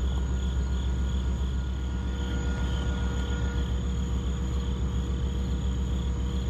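Crickets chirping in a steady pulse about twice a second over a continuous low rumble from the approaching one-car LIRR test train.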